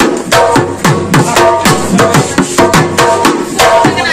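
Assamese Bihu dhol beaten with a stick in a quick, steady rhythm. Its low strokes boom and drop in pitch, with ringing higher tones between them.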